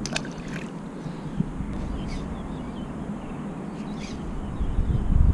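A few short bird calls over a steady outdoor background hiss, with a low rumble swelling near the end.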